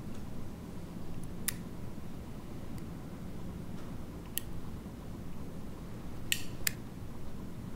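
Metal flip-top lighter being fidgeted with in the hands, its hinged lid clicking: four sharp, brief clicks spread apart, the last two in quick succession, over a low steady room hum.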